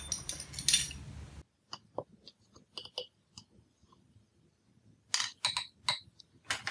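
Metal measuring spoon clinking and tapping while scooping coconut oil and knocking it into a glass jar of chocolate chips: scattered light clicks, then a quicker run of louder clinks near the end.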